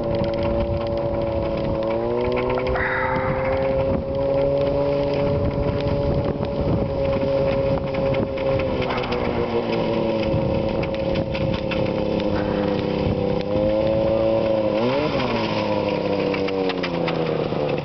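Snowmobile engine running as the machine drives across the snow toward and up to the listener. Its pitch climbs about two seconds in, holds steady, eases off, then rises again, with a quick drop and recovery near the end.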